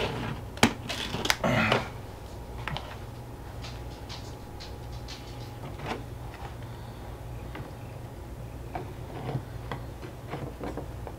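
Handling of wooden beehive frame parts and a black plastic foundation sheet: a few sharp clicks and knocks in the first two seconds, then scattered light taps and ticks as the sheet is fitted into the frame's grooves.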